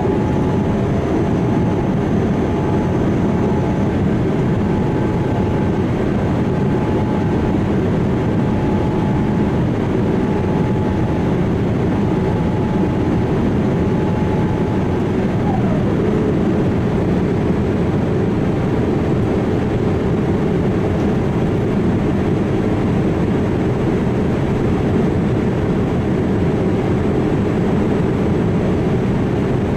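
Steady, loud jet noise from a Boeing 787-8 airliner. About halfway through, a whining tone slides down in pitch and settles at a lower, steady note.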